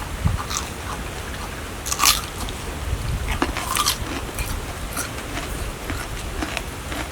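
Biting and chewing on crunchy food, with crisp crunches loudest about two seconds in and again around three and a half seconds, over a steady low rumble.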